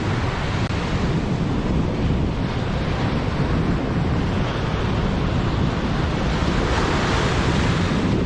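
Wind buffeting the microphone over the wash of surf, a steady rumbling noise with no engine or voice in it; the hiss swells briefly near the end.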